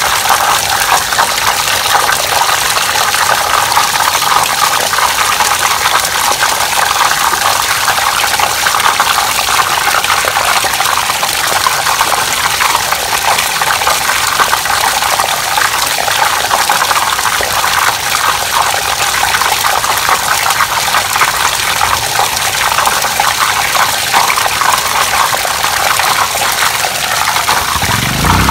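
Water gushing steadily from a pipe into a full plastic basin and splashing over its rim onto a tiled floor.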